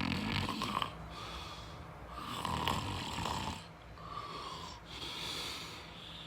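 A person snoring in a string of long, drawn-out breaths, each about a second long.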